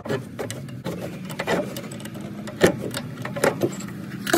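Gloved hands turning the threaded spring collar on a Maxpeedingrods coilover to lower the ride height, giving sharp, irregular metal clicks and knocks. A steady low hum runs underneath.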